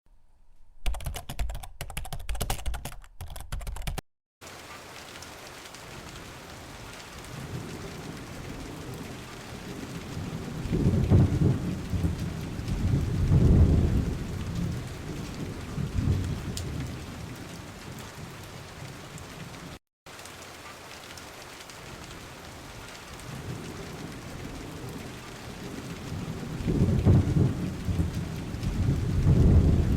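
Recorded rain falling steadily, with thunder rumbling several times in two spells, one mid-way and one near the end. It opens with a few seconds of rapid clicking, and the sound cuts out briefly twice.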